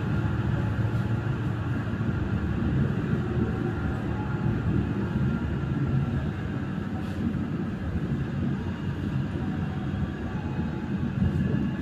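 Passenger train running, heard from inside the coach: a steady low rumble of the wheels on the rails.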